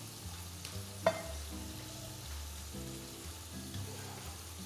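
Oil sizzling steadily in a hot pan where black tiger prawns are searing, with one sharp metal clink about a second in. Soft background music with held chords runs underneath.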